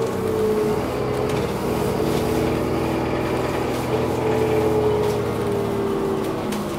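Alexander Dennis Enviro400 double-decker bus driving, heard from inside the passenger saloon: steady engine and road noise with a whine that falls slowly in pitch, once at the start and again about four seconds in.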